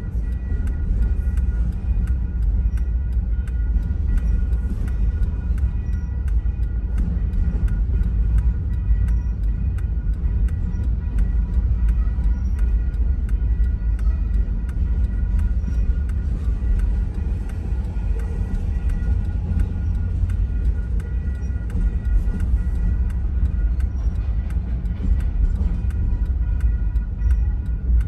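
Double-stack container freight train rolling steadily past, a continuous low rumble heard from inside a car, with faint steady high tones and light clicking over it.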